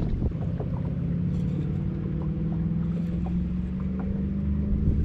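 Boat motor running at a steady pitch.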